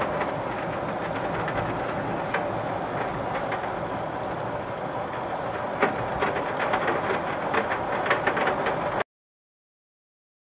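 Steady heavy rain mixed with hail, with many small sharp ticks of hailstones striking among the downpour. The sound cuts off abruptly about nine seconds in.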